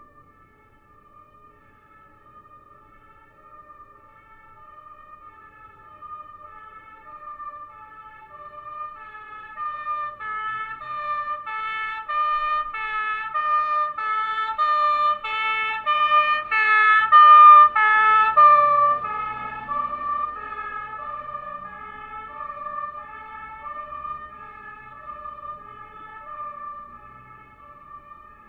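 Two-tone hi-lo siren of a passing emergency vehicle, switching between two notes roughly every three-quarters of a second. It starts faint, grows loud to a peak a little past the middle, then fades away as the vehicle moves off, with a faint low vehicle rumble around the peak.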